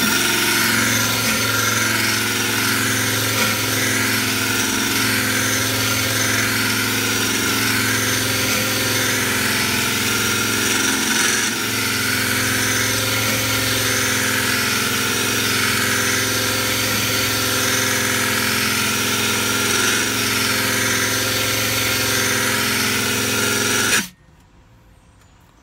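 Power drill spinning a sharpening-stone attachment against the edge of a lawnmower blade: a steady motor hum with a grinding hiss as the stone is worked back and forth along the edge. It cuts off suddenly near the end.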